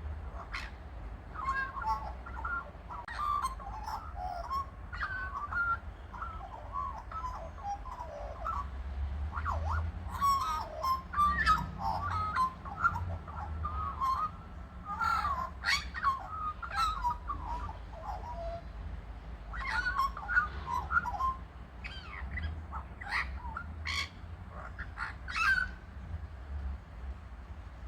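Birds calling in short, wavering, warbling phrases, with some short sharp notes in between, over a steady low rumble.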